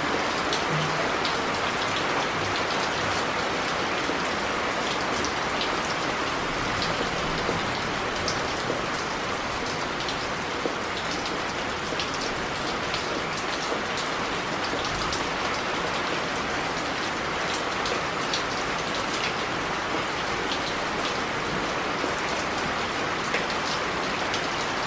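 Steady rain falling on wet pebbles: a constant hiss with many single drops ticking sharply through it.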